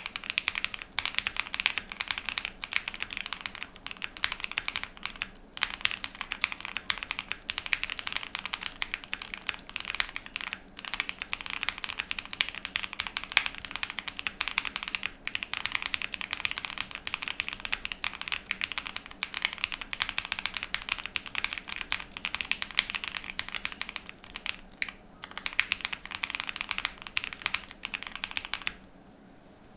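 Continuous fast typing on a Cub65 mechanical keyboard with a POM plate, lubed Vertex V1 switches and GMK WOB keycaps: a dense run of keystroke clacks, with brief pauses about five and ten seconds in. The typing stops shortly before the end.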